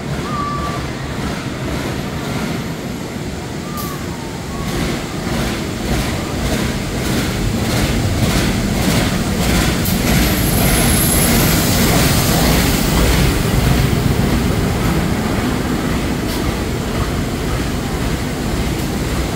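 Diesel locomotive hauling a passenger train slowly into a station platform, its engine rumble building as it approaches with a steady beat, then loudest as it passes. A thin high squeal about ten seconds in as the train brakes, followed by the coaches rolling by.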